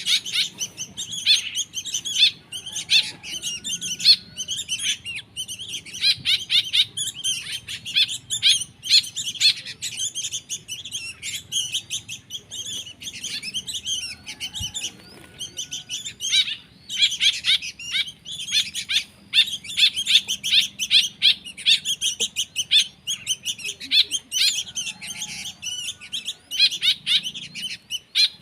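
Young songbird chicks chirping rapidly and without pause, the shrill begging calls of nestlings not yet able to feed themselves, with a few short breaks in the middle.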